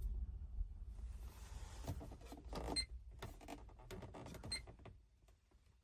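Aftermarket touch-screen car stereo beeping twice as its icons are tapped: short, high electronic beeps. Between them come light taps and a brief rustle.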